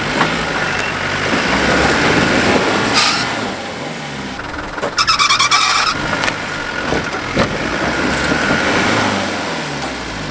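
Land Rover Defender engine labouring at low revs, its pitch rising and falling as the truck crawls over a rocky step off-road. A brief burst of rapid, high-pitched chirps about five seconds in is the loudest moment.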